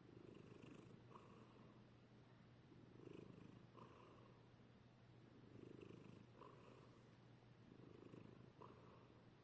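A sleeping cat snoring faintly, about four rasping breaths, one every two and a half seconds or so.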